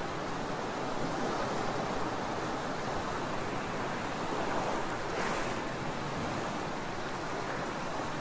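Tornado wet vacuum running, its squeegee attachment sucking water and concrete slurry off the floor: a steady rushing hiss, with a brief sharper burst about five seconds in.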